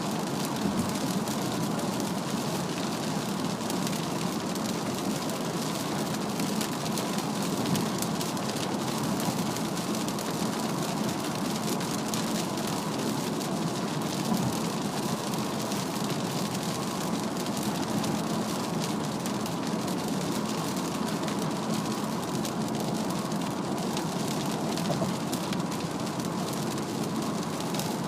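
Heavy rain pattering on a car's roof and windshield over steady tyre and road noise at highway speed, heard from inside the cabin of a Mazda CX-3.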